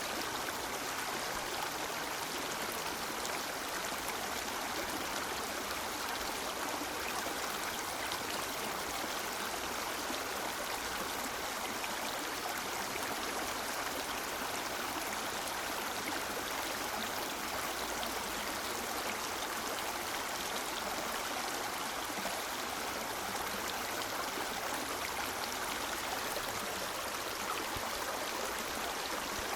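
River water flowing steadily over rocks: an even rushing and babbling.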